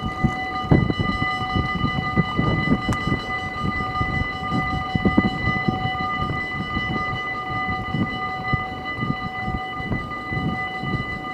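Dutch railway level crossing warning bells ringing steadily while the barriers lower, signalling an approaching train. Heavy gusts of wind and rain buffet the microphone underneath.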